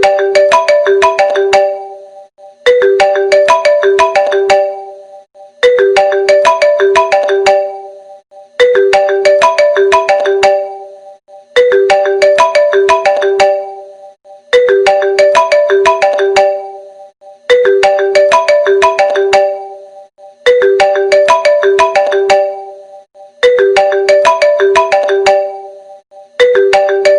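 Phone ringtone playing a short bright melodic phrase of about two seconds, repeating every three seconds.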